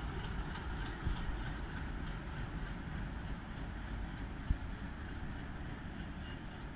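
Low steady rumble of a WDG3A ALCO diesel locomotive's 16-cylinder engine as the locomotive moves slowly away on its own during shunting. A few faint clicks come in the first second, and a single thump about four and a half seconds in.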